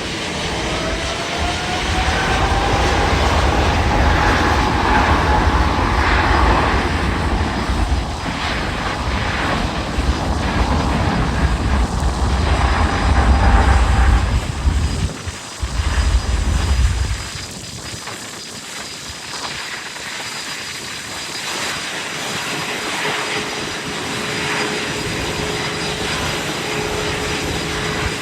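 Boeing 777-200LR's GE90 turbofans at takeoff thrust: a rising whine as they spool up, then a heavy low roar on the takeoff roll that is loudest about 13 seconds in. The roar falls away sharply around 17 seconds, leaving a fainter steady engine drone with a single held tone.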